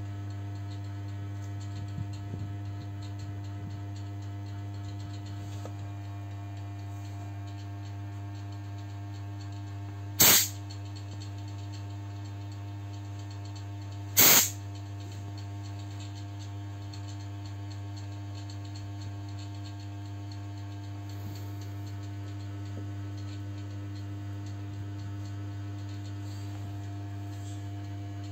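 Steady electrical hum with two short, loud bursts of noise about four seconds apart in the middle.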